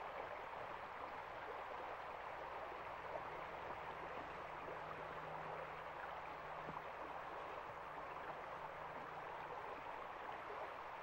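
Small, shallow stream flowing, a steady rush of water.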